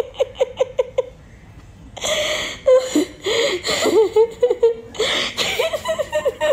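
A woman laughing uncontrollably. Rapid, evenly pulsed "ha-ha" laughter runs for about the first second, there is a short pause, then louder, breathier bursts of laughter follow, rising and falling in pitch.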